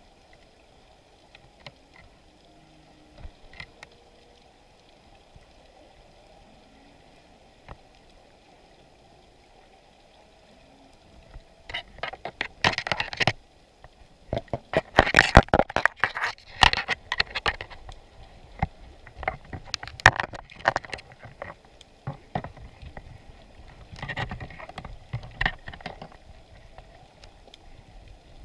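Underwater knocking and rattling heard through a GoPro's waterproof housing inside a crab trap on the sea bottom. After a faint, steady stretch, clusters of loud sharp knocks start about eleven seconds in and come in bursts until near the end.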